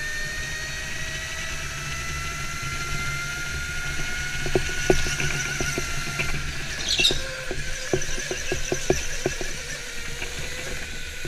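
Go-kart driven hard through corners: a steady motor whine that slowly rises and then falls in pitch, with a run of short tyre squeals and chirps from about four to nine and a half seconds in.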